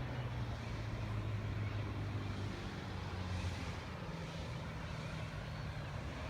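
1973 Reinell boat's engine running steadily, a low, even drone over a continuous rushing noise.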